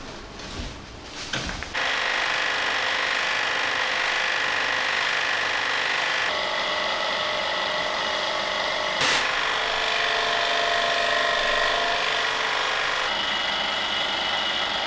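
High-pressure washer running steadily, starting abruptly about two seconds in, with a short sharp burst about halfway and slight shifts in its tone.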